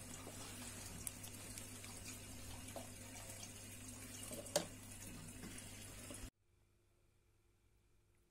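Faint steady rush of running water, with a single sharp click about four and a half seconds in. It stops abruptly about six seconds in, leaving near silence.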